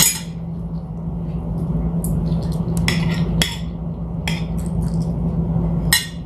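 Cutlery and dishes clinking about half a dozen times while eating, over a steady low hum.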